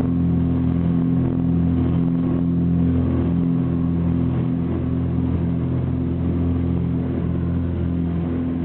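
Small private plane's engine drone inside the cabin: a steady, unchanging low hum with a constant rush of noise.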